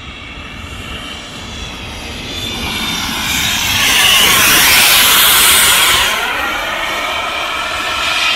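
The K45G4 turbine jet engine of a radio-controlled F-22 Raptor model running during a pass overhead, growing louder to a peak about four to six seconds in, then easing off as it moves away.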